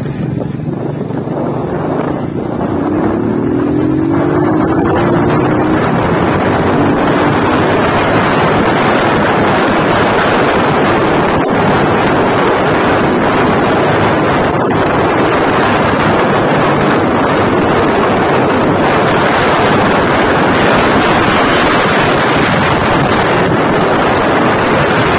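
Motorcycle engine riding off-road, its pitch climbing a few times about three to six seconds in as it accelerates, then largely covered by loud steady wind rush on the microphone as the bike keeps moving at speed.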